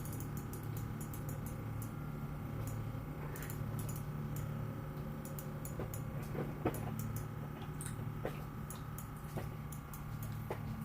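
Light, irregular clicks and ticks of a fishing rod, reel and line being handled while landing a fish, over a steady low hum.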